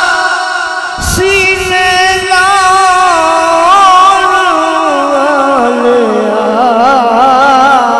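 An elderly man's voice singing a Punjabi naat into a microphone, a long wordless passage of held notes with heavy wavering vibrato that step downward in pitch over the last few seconds. A brief knock sounds about a second in.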